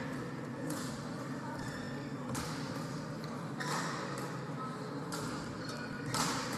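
Badminton rally: a racket striking the shuttlecock five times, about once every second and a half, each hit a sharp crack that rings on briefly in a large hall.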